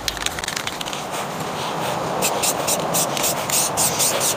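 Aerosol spray can spraying satin clear coat in a steady hiss, with a rapid crackle of small clicks over it from about halfway through.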